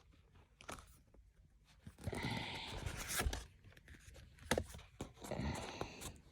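Paper and cardboard of a CD box set and its book being handled: two stretches of rustling and sliding, about two seconds in and again near the end, with a few light clicks.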